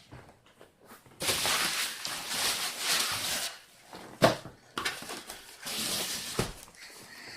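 Packaging rustling in two long stretches as a boxed miniature is unwrapped, with a single sharp knock a little past the middle.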